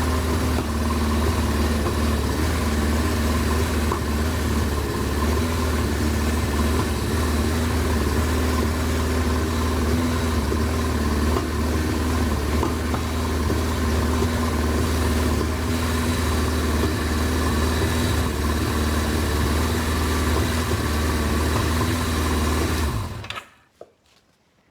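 1983 Suzuki GS1100 GK's air-cooled inline-four engine idling steadily, then shut off near the end.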